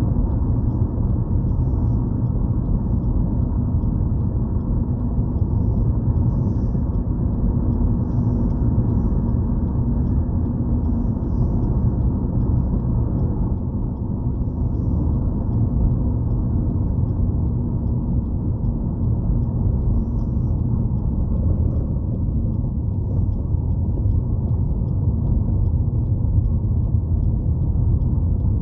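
Steady low rumble of road and engine noise inside the cabin of a moving Chevrolet Malibu at cruising speed.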